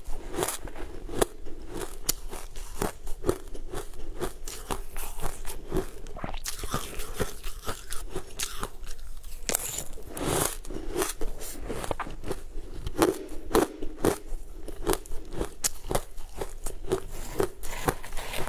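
Close-up crunching of crumbly green frozen sweet ice, scooped with a metal spoon and bitten and chewed, many sharp crunches in quick succession.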